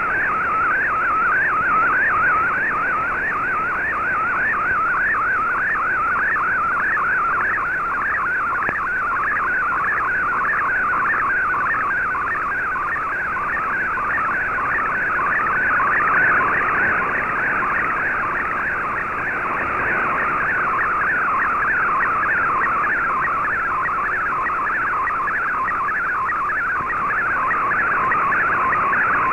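Shortwave Radiogram image signal in fldigi's MFSK64 picture mode, received in AM on an Icom IC-R8600: an SSTV-like tone that warbles rapidly up and down as it scans out the picture line by line, over steady shortwave static hiss.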